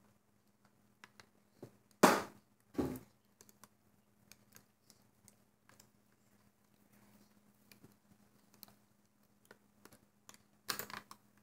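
Small plastic clicks and taps of a hook working rubber bands on a plastic loom. Two louder knocks come about two and three seconds in, and another short clatter near the end.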